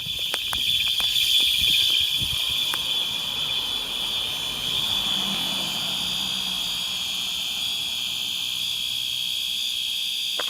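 Fire alarm horn sounding a continuous, unbroken high-pitched tone, set to continuous at low volume. A few faint clicks come in the first couple of seconds.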